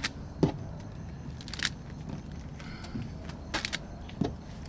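Rubber bands snapping one after another onto the rind of a watermelon as they are stretched around its middle: sharp smacks every second or so, some in quick pairs, over a low steady background rumble.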